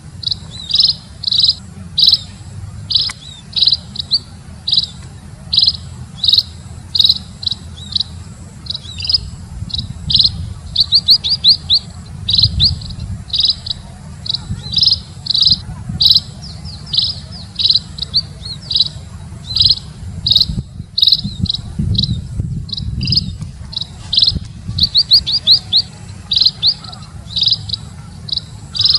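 Burung pipit, a small munia-type finch, chirping over and over: short high chirps about one to two a second, broken twice by a quick run of rapid trilling notes. A steady low hum lies underneath.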